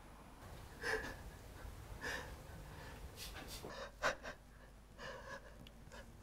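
A person's short gasps and breaths, several in a row, with one sharp gasp about four seconds in the loudest.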